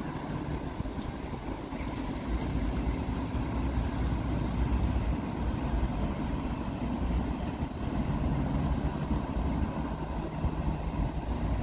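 Steady rumble of city road traffic, with a faint engine hum coming up near the end.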